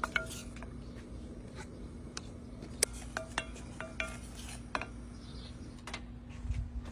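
Wooden spoon stirring a thick sauce in a stainless steel saucepan, knocking and scraping against the pot in irregular clicks, some of them with a short metallic ring; the sharpest knock comes a little before the middle. A steady low hum runs underneath.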